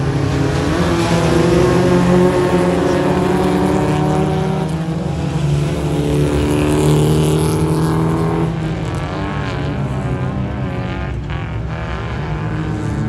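Several race cars' engines running hard and revving, their pitch rising and falling as they race round the track. After about eight seconds the engine sound drops a little and wavers.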